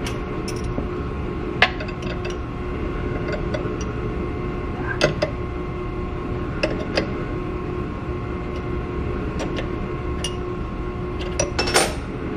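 Scattered metal clinks and taps of a wrench working the spindle's collet nut as the cutter is unloaded from a Haas Desktop Mill, with a quick cluster of clinks near the end. Underneath runs a steady hum.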